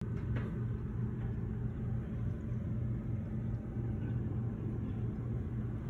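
A steady low hum and rumble of machinery, unchanging throughout.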